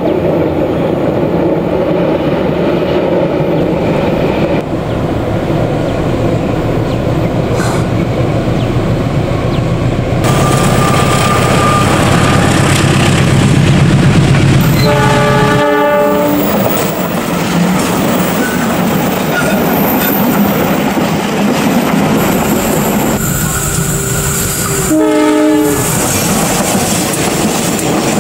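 Diesel-hauled passenger trains passing, the locomotive engine rumbling and the wheels clattering over the rails. A locomotive horn sounds in short, broken blasts about halfway through and again near the end.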